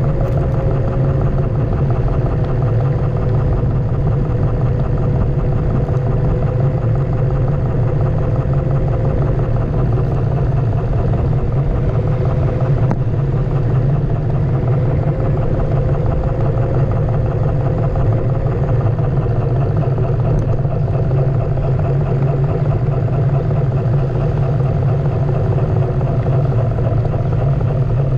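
Onewheel electric board rolling over city pavement, heard from a camera mounted on the board: a steady low rumble of the tyre and hub motor, with a faint hum that drifts slightly in pitch as the speed changes.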